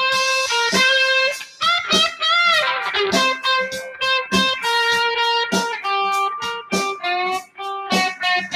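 Guitar playing an instrumental jam passage of picked notes, with notes bent up and down in pitch about two to three seconds in.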